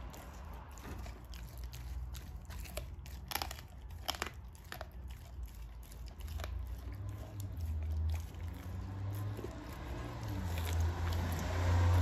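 American bulldog chewing raw meat: wet biting and mouthing, with a few sharp crunches around the middle. A low rumble comes in during the second half and grows loudest near the end.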